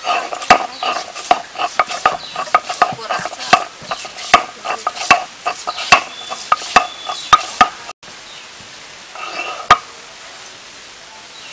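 Stone roller crushing slices of fresh ginger on a shil-pata grinding stone: an irregular run of sharp knocks and gritty scrapes, several a second, that stops about eight seconds in, followed by one more knock a little later.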